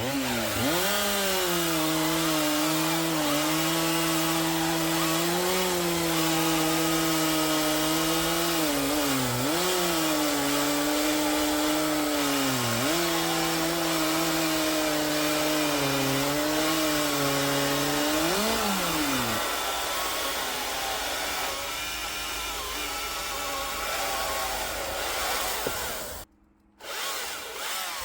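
Chainsaw with a full-chisel chain cutting through a thick oak log. The motor's steady note sags in pitch a few times as it loads up in the cut. About 19 seconds in, the motor note stops and a quieter noise is left.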